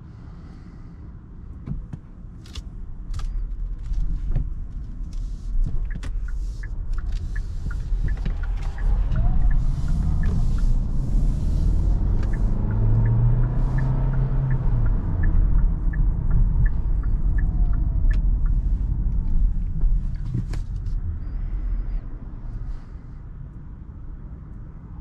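Cabin sound of a Kia Sorento hybrid's 1.6 turbocharged four-cylinder petrol engine pulling the car up to speed, with tyre and road noise on a wet road. It builds over the first several seconds, holds through the middle, then eases off as the car slows. Occasional sharp knocks are heard over it.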